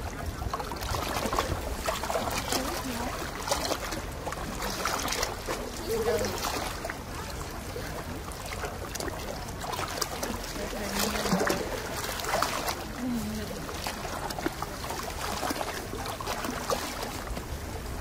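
Sea water lapping and splashing in short irregular washes, with faint voices now and then.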